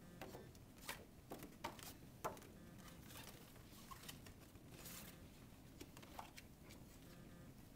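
Faint rustling and a scatter of soft clicks and taps from paper picture cards being pulled out of a plastic pocket chart and stacked, over quiet room tone.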